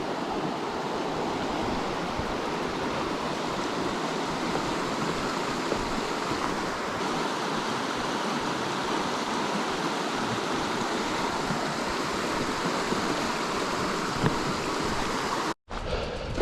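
Steady rush of river water, an even hiss with no rhythm. It drops out briefly near the end.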